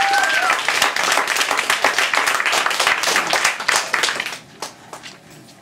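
Small audience clapping, with a brief vocal whoop at the start; the applause dies away about four seconds in, leaving a few scattered claps.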